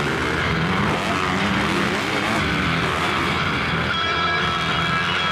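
Motocross dirt bike engines revving up and down, with music coming in about four seconds in.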